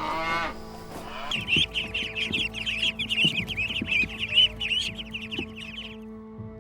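Tail end of a cow's moo, then a brood of chicks peeping, many high, quick chirps overlapping for about five seconds before stopping near the end.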